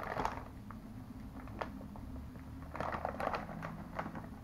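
Lay's Kettle Cooked chip bag crinkling as it is handled, in short spells of rustling at the very start and again around three seconds in.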